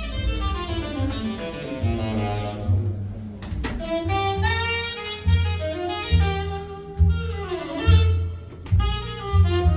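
Jazz playing through a hi-fi system's Estelon loudspeakers: a saxophone melody over deep plucked double-bass notes.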